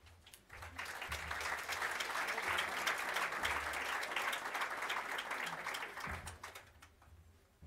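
Audience applauding. It builds up within the first second, holds steady, and dies away about six to seven seconds in.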